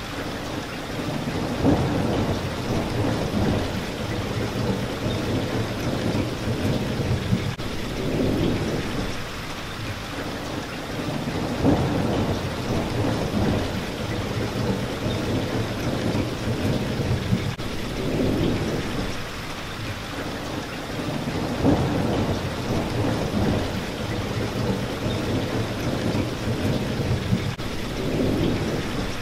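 Steady heavy rain pattering on a window pane, with low rumbling swells that rise and fall every few seconds. The same pattern, sharp drop included, comes round about every ten seconds, as in a looped recording.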